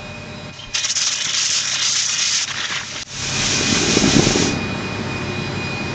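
Number one main diesel engine of a Hamilton-class Coast Guard cutter, a Fairbanks Morse opposed-piston diesel, being started. A loud rush of hiss comes about a second in, then a second rush with a deep rumble about three seconds in as the engine catches. It then settles into steady running with a constant high whine and a low hum.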